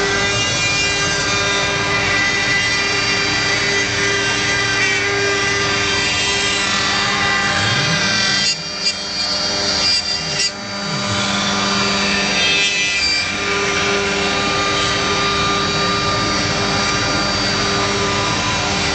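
CNC router spindle cutting a relief carving into a wooden door panel, a steady whine over the noise of the bit chewing through wood. About halfway through the cutting noise dips briefly, with short rising and falling glides in pitch, then carries on.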